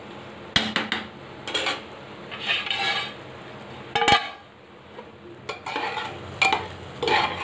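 Metal spatula scraping and clinking against metal cooking pans while stirring, in irregular strokes. About four seconds in comes the loudest, ringing metallic clang, followed by more scraping clinks near the end.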